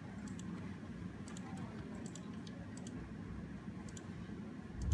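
Computer mouse clicking, each click a quick press-and-release pair, about six times at an uneven pace of roughly once a second: setting the points of a Polygonal Lasso selection in Photoshop.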